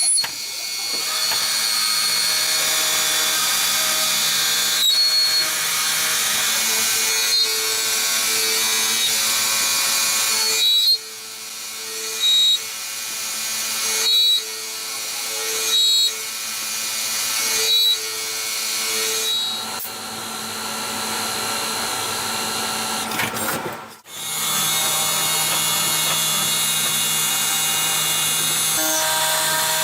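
CNC lathe running and cutting: a steady machine whine over cutting noise. In the middle, short louder pulses come about every two seconds. About three-quarters through, the sound sweeps, briefly drops away, then comes back up.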